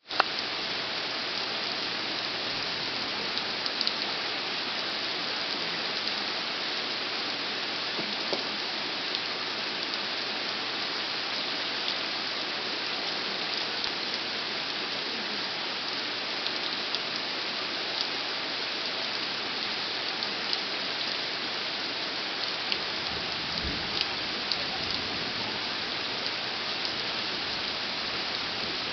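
Steady rain falling on forest foliage and ground, with scattered louder drop impacts. A low thunder rumble sets in about 23 seconds in.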